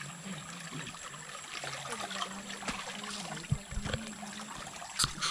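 Shallow water trickling along a concrete irrigation ditch, with small splashes as someone stands in it washing her legs by hand. A few dull thumps about three and a half seconds in and a sharp knock near the end.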